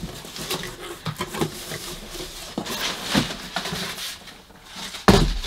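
Cardboard shipping box being opened by hand: flaps scraping and crumpled kraft packing paper rustling and crinkling as a shoebox is pulled out, with a loud thump near the end.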